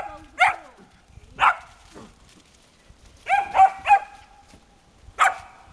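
A black-and-white collie-type dog barking in short, sharp, high-pitched barks while waiting for a ball to be thrown. There are about seven barks, including a quick run of three about three seconds in.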